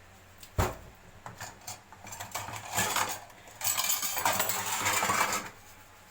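Dishes and cutlery clattering and clinking in a kitchen sink during washing-up, with a sharp knock about half a second in. A steady rush of noise runs for about two seconds in the second half.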